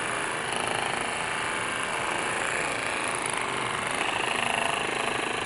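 TIMTAM Power Massager Pro percussive massage gun running at its second speed, its ball-shaped cooling tip pressed against the arm: a steady, fast-pulsing motor buzz.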